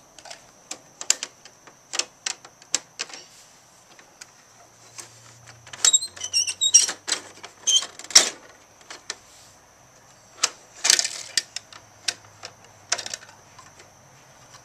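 Hard plastic clicking and clattering from toy wheelie bins and the rear bin-lifter of a Bruder toy garbage truck as the bins are handled, set down and hooked on. The clicks come irregularly, in denser flurries about halfway through and again a few seconds later.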